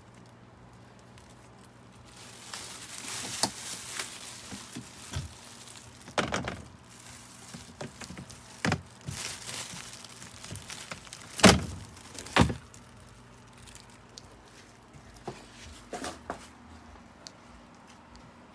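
Irregular knocks and thumps with some rustling, the two sharpest knocks coming close together about two thirds of the way through.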